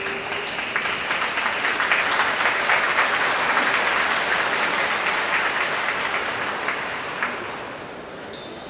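Sumo arena audience applauding as the wrestlers step up into the ring. The applause swells over the first two seconds, then slowly dies away toward the end.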